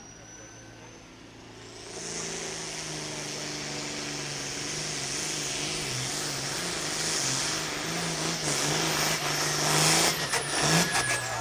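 Pro Field class pulling tractor's diesel engine at full power as it drags the sled, with a high whine above the engine note. It comes in about two seconds in, holds with a slightly wavering pitch, then breaks off about ten seconds in with several sharp knocks as the pull ends.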